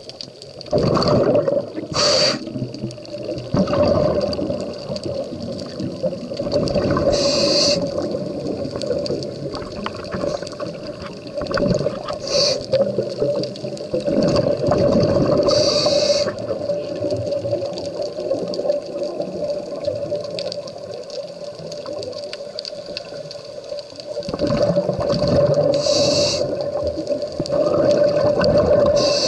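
Scuba diver breathing through a regulator, heard underwater: a short hiss on each inhale every few seconds, followed by the longer rushing bubble noise of the exhale, over a steady hum.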